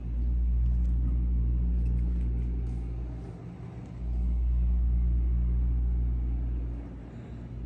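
A deep, loud rumble with a steady low hum under it, swelling and easing off in waves about every three to four seconds.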